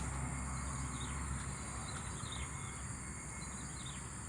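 Small bird chirping in short, faint calls, several times, over a steady high insect drone and a low rumble.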